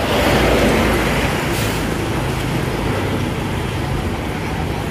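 A road vehicle's engine running, with traffic noise; a low steady hum swells in the first second, then holds steady.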